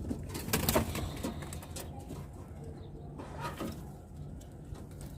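Domestic pigeons cooing, with a few sharp knocks and rattles in the first second.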